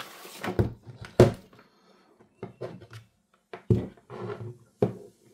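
Handling noise as a pair of over-ear headphones and their cable are picked up and moved about on a desk: a handful of sharp knocks, the loudest about a second in, with soft rustling between.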